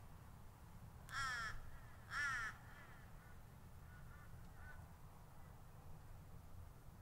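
A bird calling twice, two loud calls about half a second long and a second apart, followed by a few faint short calls. A low steady rumble of distant road traffic runs underneath.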